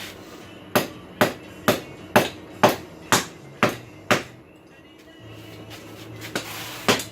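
Blacksmith's hammer striking a steel snake forged from a farrier's rasp against an anvil: eight sharp blows about two a second, then a pause and a few more blows near the end.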